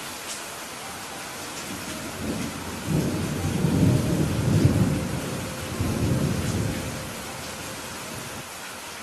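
Steady rain with a low, rolling thunder rumble that builds about two seconds in, is loudest in the middle, swells once more and dies away, leaving the rain.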